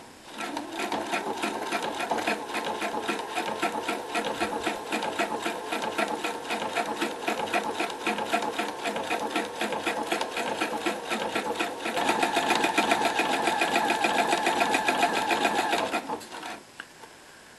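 Domestic sewing machine with a twin needle stitching a hem in a steady run of rapid needle strokes, louder for the last few seconds, then stopping about a second before the end.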